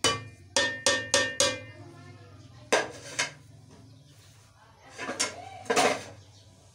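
Sharp metallic clinks of a utensil tapping against a cooking pot while ground spices are added: a quick run of about five ringing strikes in the first second and a half, then a few more around three seconds in and again near six seconds.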